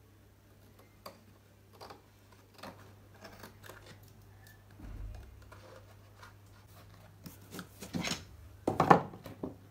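Scissors snipping through art-card paper in short separate cuts, roughly one every half second to a second, trimming a print to fit a canvas. Near the end come louder rustles and knocks as the trimmed sheet and canvas frame are handled.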